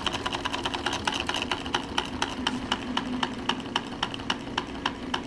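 Wiggers model Stirling hot-air engine running, its rods and levers clicking in an even rhythm. The clicks slow from about six to about four a second as its speed-control knob is turned down.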